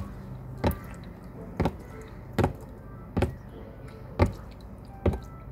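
A red-eared slider swimming in a plastic tub of water, its strokes making sharp taps about once a second, seven in all.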